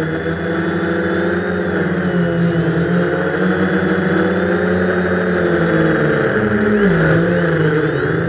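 Quadcopter's brushless motors and propellers whining, heard from its onboard camera, several pitches wavering together as the throttle changes. The pitch drops near the end and then picks back up, over a steady rushing noise.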